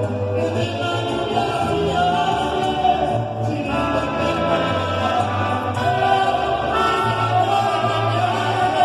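Mariachi ensemble playing a son: held melody notes over a steady low bass line.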